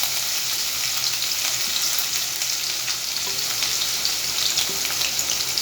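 Chopped green chili, ginger and garlic sizzling in hot oil in a pan as they sauté, a steady hiss with small crackles and pops.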